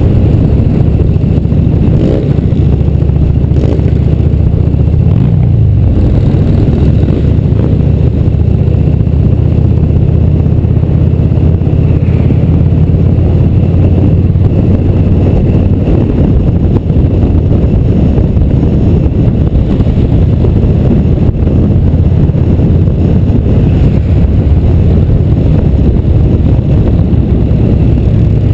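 Harley-Davidson V-twin motorcycle engine running steadily at cruising speed, heard loud and close from a camera mounted on the bike itself.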